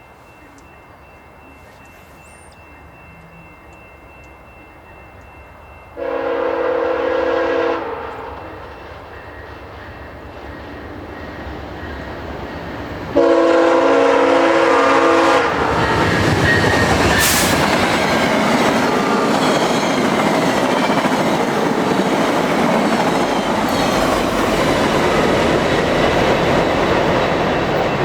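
VIA Rail passenger train, led by a GE P42DC diesel locomotive, approaching and passing at speed. A low rumble grows, and the horn sounds a long blast about six seconds in and another about thirteen seconds in. Then the locomotives and coaches rush by with wheel clatter.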